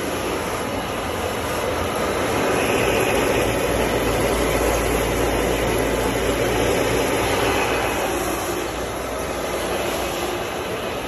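Rug-scrubbing machine running steadily as its head works shampoo foam through a shag rug: a constant motor rumble with a wet, frothy hiss, a little louder through the middle.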